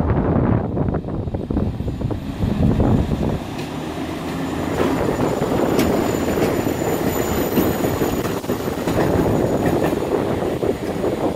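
EP09 electric locomotive running light past at low speed: a steady rumble of wheels and running gear with sharp clicks over rail joints and a thin high tone. Wind buffets the microphone for the first few seconds.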